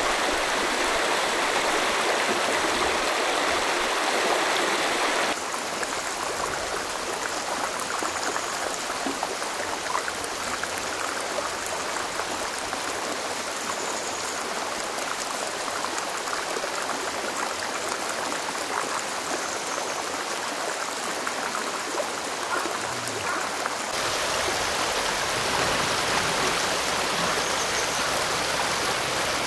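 Mountain valley stream rushing steadily over rocks. The rush drops abruptly quieter about five seconds in and comes back louder about five seconds before the end.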